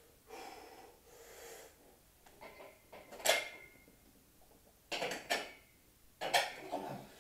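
Metal clanks and knocks from a steel power rack as gravity boots and hands strike the pull-up bar while a man swings up to hang upside down: about four sharp knocks in the second half, the first ringing briefly.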